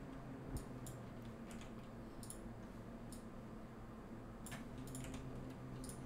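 Faint, scattered clicks of a computer keyboard and mouse as Blender shortcuts are pressed to move and rotate an object, over a low steady hum.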